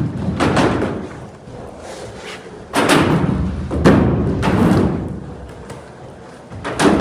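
Carver skateboard wheels rolling and rumbling over a wooden ramp, the noise swelling and fading in waves as the board carves and pumps, with loud thuds about three and four seconds in.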